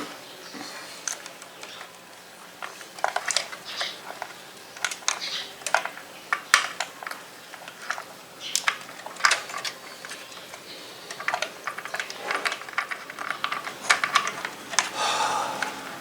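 Irregular small clicks and plastic rattles as a SATA data cable is worked by hand into its connector inside a PC tower case, with a longer rustle near the end.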